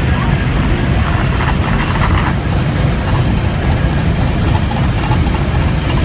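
Running gear of a Mount Washington Cog Railway train under way, its cog wheel working along the ladder rack rail: a loud, steady, low rumble with mechanical noise and no let-up.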